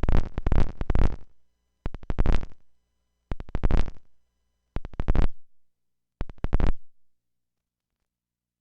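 Modular synthesizer output through a PT2399 digital delay module: five short bursts of rapid, clicky, glitchy repeats, each fading out, spaced about a second and a half apart, the last ending near the end.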